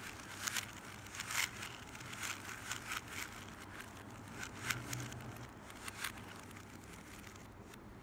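3x3 Rubik's cubes being turned quickly by hand: an irregular run of plastic clicks and clacks as the layers twist, thinning out near the end.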